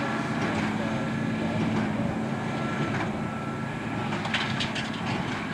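Tractor and Massey Ferguson 2170 large square baler running steadily in the field, a constant mechanical hum with a few steady tones.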